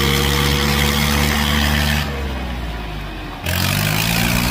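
Diesel tractor engines of a John Deere 5210 and a Swaraj 855 running at full throttle under heavy load in a tug-of-war pull. The engine note drops and softens about two seconds in, then revs back up sharply near the end.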